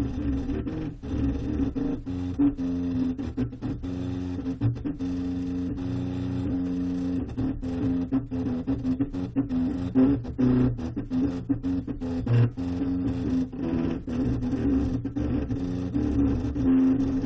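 3D printer's stepper motors whining in a few steady tones that shift pitch and stop and start every moment or so as the print head moves while printing a small brick.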